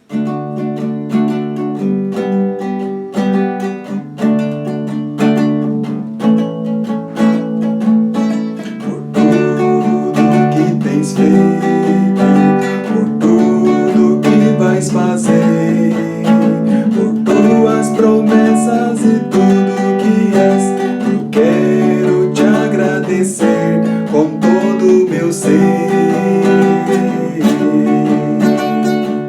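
Acoustic guitar strummed in chords, accompanying a worship song; the music starts suddenly and grows fuller about nine seconds in.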